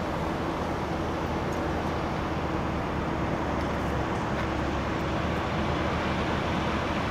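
Steady outdoor traffic noise: an even rush of passing vehicles with a low rumble, growing slightly louder toward the end.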